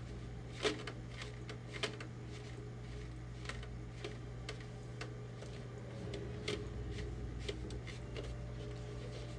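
A cloth rag rubbing and wiping over a painted plastic stormtrooper armor piece, taking off weathering paint. Scattered light clicks and taps come from the plastic being handled, over a steady low hum.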